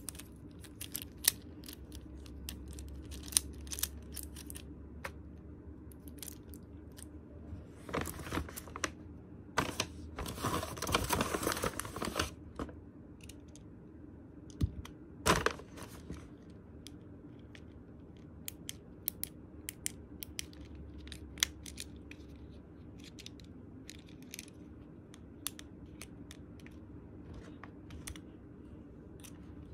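Sharp small clicks from fidget toys being handled: an infinity cube being folded over and a fidget pad's buttons being pressed. About ten seconds in there are a couple of seconds of paper rustling.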